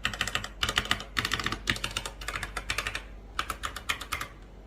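Typing on a Fantech Atom 81 mechanical keyboard with red (linear) switches: rapid key clicks in quick bursts, with a short pause about three seconds in.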